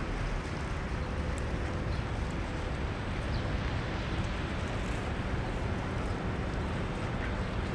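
Steady city street ambience: an even, low rumble of traffic with no distinct events.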